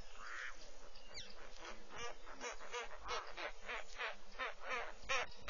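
Birds calling: a rapid run of short, harsh, honking notes, about four to five a second, starting about two seconds in. A brief falling whistle comes about a second in.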